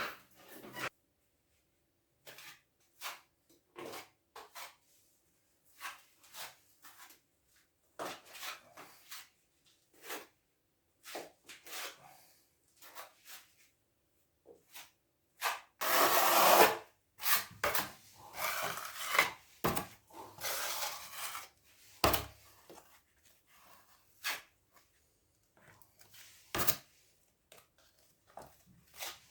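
Irregular scraping and rubbing strokes of hand tools on a hard surface, with a few sharp knocks; the longest, loudest scrape comes about halfway through.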